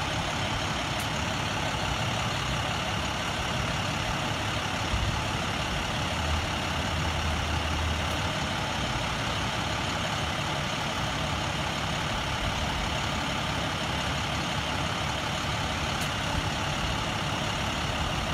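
A heavy truck engine idles steadily. Its low hum swells for a couple of seconds about six seconds in.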